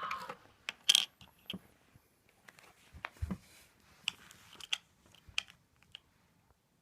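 Scattered small clicks and light rustling from handling, with one low thump about three seconds in; the sounds stop about six seconds in.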